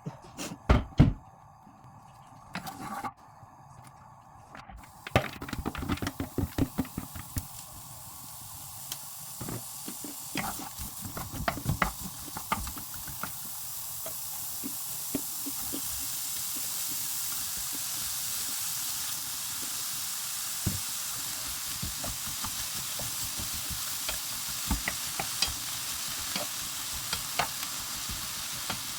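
Food frying in a pan greased with olive oil spray. The sizzle builds over the first fifteen seconds or so and then holds steady. A utensil knocks and scrapes against the pan as the food is stirred, most often in the first ten seconds.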